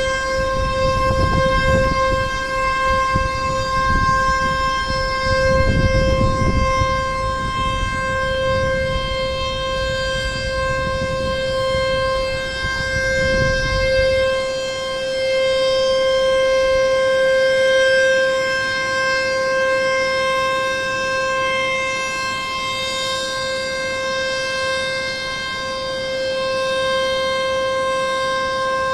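Dam discharge warning siren, sounding a long steady held tone: the alarm that water is being released from the headworks. For the first half a gusty low rumble lies under it, and it stops suddenly about halfway through.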